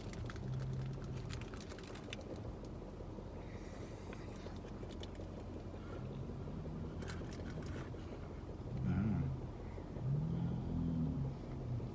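A man chewing a mouthful of a chicken sandwich, with several low closed-mouth 'mmm' hums of approval and small mouth clicks. Under it runs a steady low rumble inside a vehicle cabin.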